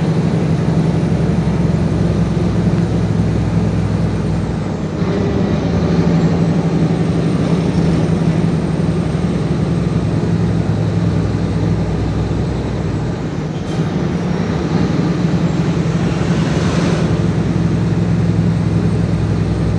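Mercedes-Benz Actros 1844 truck's V6 diesel engine running under way, heard from inside the cab: a steady low drone. The note dips briefly about five seconds in and again about fourteen seconds in.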